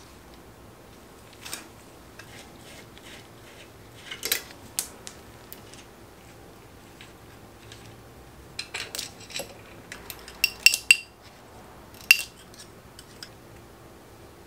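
Small steel parts of a bicycle front hub clicking and clinking as the hub is taken apart and the axle drawn out. There are scattered light clicks, a few sharper clicks about four seconds in, a cluster of ringing metallic clinks about ten to eleven seconds in, and one more about twelve seconds in.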